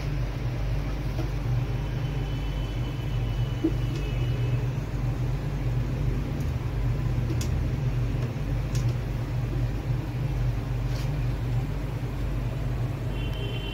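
Steady low rumble with a few faint, light clicks scattered through it.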